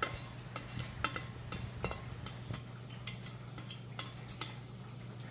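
A kitchen utensil clinking and scraping against cookware in quick, irregular taps, most of them in the first half. A low steady hum runs underneath.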